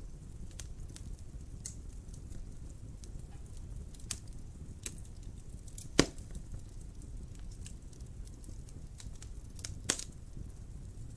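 Fire burning in a fireplace: a steady low rumble of flames with sparse sharp crackles, a loud pop about six seconds in and another near the end.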